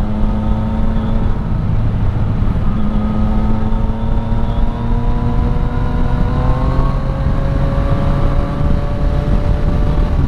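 Yamaha MT-09 Tracer 900's three-cylinder engine with an Akrapovic exhaust running under way, heard from onboard with wind rush. The engine note rises slowly as the bike pulls. It breaks off briefly a little over a second in and steps up around seven seconds.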